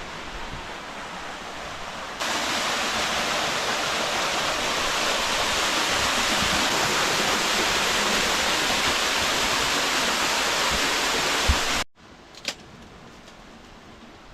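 Loud, steady rush of water, as from a waterfall or fast-flowing river; it jumps louder about two seconds in, then cuts off suddenly near the end to a much quieter background with a single click.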